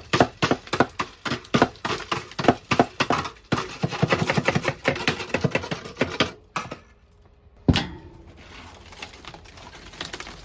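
Thick built-up ice being chipped and knocked loose inside a freezer: quick sharp knocks, several a second, for about six seconds, then one heavy crack about eight seconds in.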